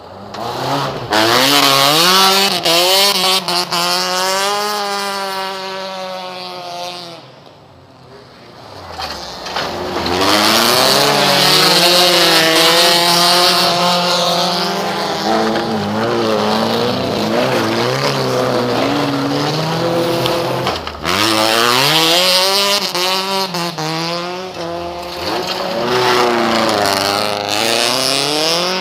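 Race car engines revving hard as cars pass one after another through a dirt-track corner, the pitch climbing under acceleration and dropping as drivers lift or shift. There is a brief lull about eight seconds in before the next cars arrive.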